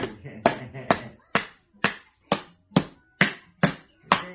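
A steady series of sharp taps, about two a second, evenly spaced, with a voice heard briefly at the start.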